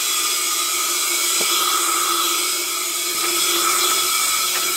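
Compressed air from a BCA Float avalanche airbag backpack's cylinder rushing into the airbag: a steady loud hiss with a faint whistle, the airbag being test-deployed.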